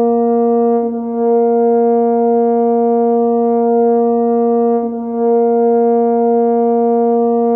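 A sustained B-flat drone tone with a brass, horn-like sound, held as a reference pitch for horn harmonic practice. It stays steady at one pitch, with a brief dip in level about a second in and again near five seconds, where the note is restarted.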